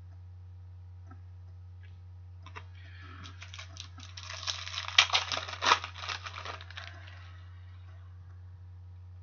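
An O-Pee-Chee Platinum hockey card pack wrapper being torn open and crinkled by hand: a run of crackling and sharp crinkles from about two and a half seconds in to about seven seconds, loudest in the middle. A steady low hum runs underneath.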